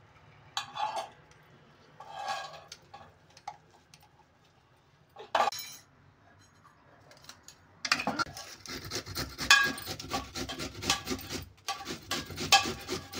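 Vegetables being grated on a stainless steel box grater over a steel bowl: quick, repeated rasping strokes start about eight seconds in and run on with one short pause. Before that, only a few faint knocks and scrapes of a steel mixer jar against a steel bowl.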